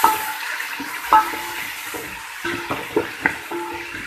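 Chopped tomatoes and green peppers sizzling in hot oil with onions in a big cooking pot while being stirred with a spoon, which knocks against the pot several times with short ringing clinks.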